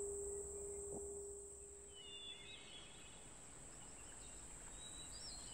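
Faint woodland ambience: a steady high insect drone, with a few short bird chirps from about two seconds in. A low held tone fades out over the first half.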